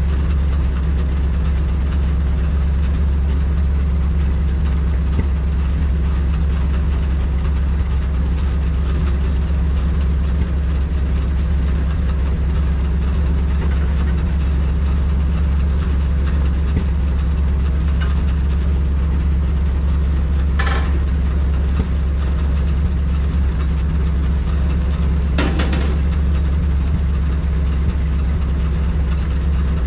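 Log truck's engine idling steadily. Two brief knocks come through it in the last third, about five seconds apart.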